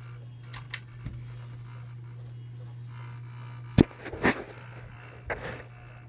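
Aloha Breeze ceiling fan running with a steady low motor hum. A few sharp knocks and scrapes come in the second half, the first about four seconds in and the loudest.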